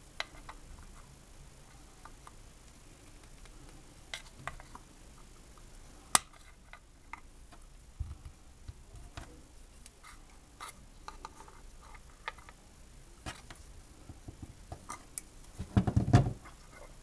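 Scattered small clicks and taps of hands handling wires and small parts, with a louder cluster of knocks and rustling about a second before the end.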